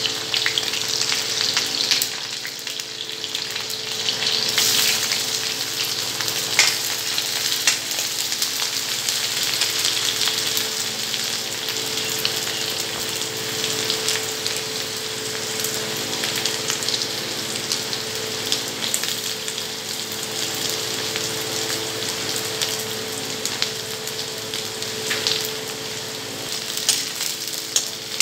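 Hot oil sizzling in a kadai as dried red chillies and then chopped onion fry in it, stirred with a metal ladle that scrapes and taps against the pan a few times.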